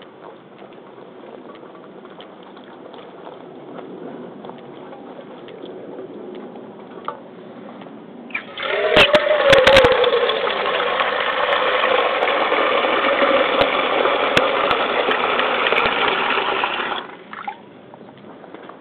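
Tap water running and splashing over rubber fishing waders: quiet at first, then a loud, steady gush starting suddenly about eight seconds in and cutting off abruptly near the end.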